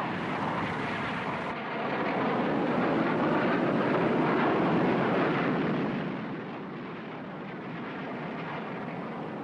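Jet aircraft engine noise, a rushing roar that swells to a peak a few seconds in and then eases off to a steadier, lower level, like a jet passing overhead.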